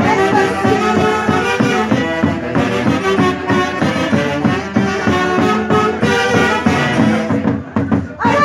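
A live band led by saxophones and other brass plays over a steady drum beat, amplified through a PA. The sound briefly thins out near the end.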